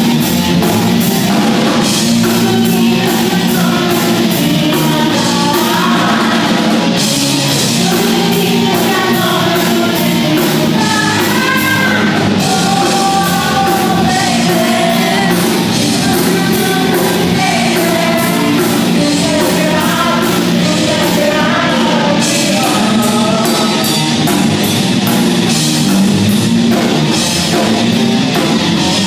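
Live rock band playing a rock-classics medley: electric guitar, bass, keyboard and a drum kit with steady cymbal strokes, with a woman singing lead through the middle stretch.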